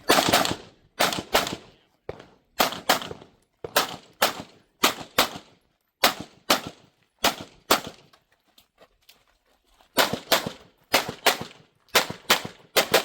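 Pistol shots fired rapidly during a USPSA stage run, mostly in quick pairs about a third of a second apart with about a second between pairs. There is a pause of about two seconds past the middle, then more pairs up to the end.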